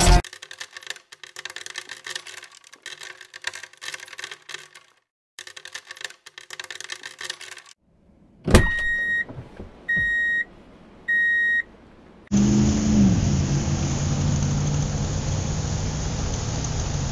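Dark plastic toy rocks clicking and rattling as a toy bulldozer scrapes through them. About halfway through there is a sharp knock, then three steady electronic beeps a second or so apart. From about twelve seconds a truck engine runs steadily, its pitch dipping once as it starts.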